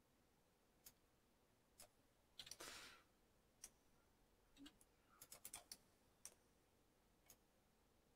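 Faint computer mouse clicks and keyboard key presses: single sharp clicks about once a second, with quick clusters of several clicks a third of the way in and again past the middle.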